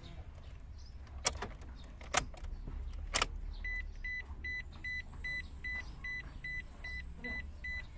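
Three sharp clicks, then a car's warning chime beeping evenly, about three short high beeps a second, starting about halfway through.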